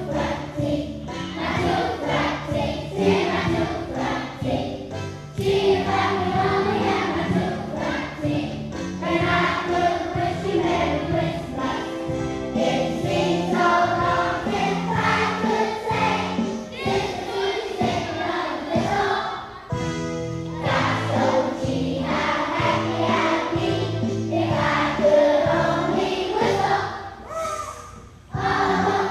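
A school choir singing with musical accompaniment, with a brief drop in level near the end.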